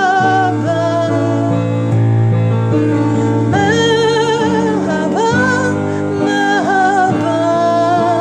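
A woman singing a slow song with vibrato on long held notes over sustained instrumental accompaniment.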